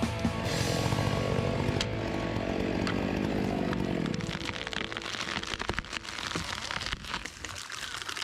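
Chainsaw cutting wood under load, running strongly for the first few seconds and then fading away about four seconds in, followed by scattered sharp cracks and ticks.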